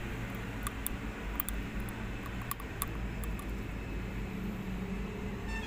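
Steady low background hum of a workshop, with a few scattered light sharp clicks.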